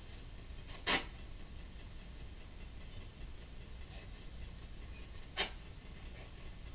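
Two short, sharp knocks, one about a second in and one near the end, over faint, evenly spaced ticking and a low steady hum.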